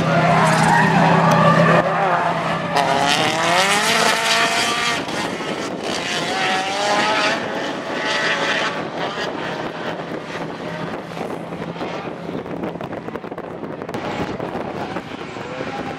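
Drift cars sliding through a corner: engines revving hard, rising and falling in pitch, with tyres squealing under wheelspin. The revving is strongest in the first half and gives way to rougher, more distant engine and tyre noise later.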